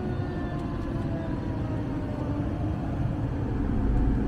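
Road and engine noise inside an Audi's cabin while driving on a highway: a steady low rumble and tyre hiss, getting a little louder near the end. A few faint tones slide slowly down in pitch during the first two seconds.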